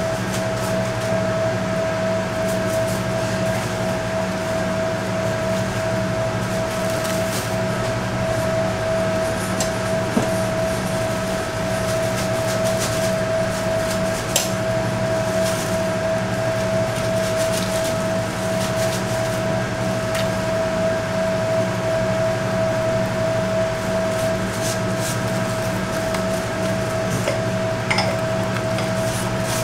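A steady machine hum with one high, unchanging whine from kitchen equipment running, with a few faint taps and clicks as gloved hands work on a bamboo mat and steel tray.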